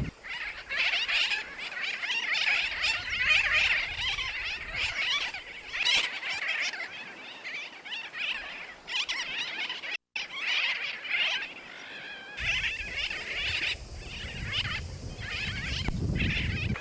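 Many birds calling at once, a dense chattering chorus of overlapping calls from a bird colony. It breaks off for an instant about halfway, and a low rumble joins in for the last few seconds.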